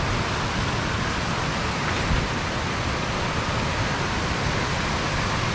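Steady, even rushing noise outdoors, with no distinct events.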